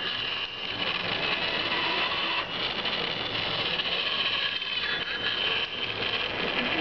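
Small geared DC motor running, rocking a model cradle on its pivot rods, with a steady mechanical whirring and rattle and a few brief dips.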